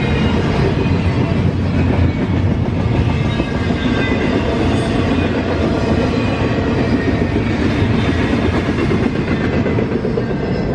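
Freight train cars rolling past close by, with a steady, unbroken rumble of wheels on rail.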